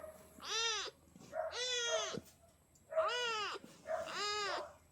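Kitten meowing four times, high-pitched calls about a second apart, each rising and then falling in pitch, as it asks for attention.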